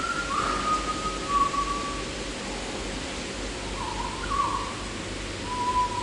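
A person whistling a slow tune: a few held notes with small slides between them, breaking off in the middle and picking up again, over a steady background hiss.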